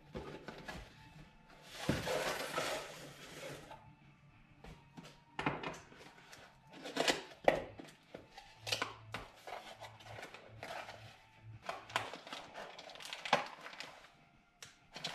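Cardboard packaging being handled and opened: rustling and scraping of the shipping box for a couple of seconds near the start, then scattered sharp taps, knocks and clicks as small parts boxes are lifted out and their flaps pried open.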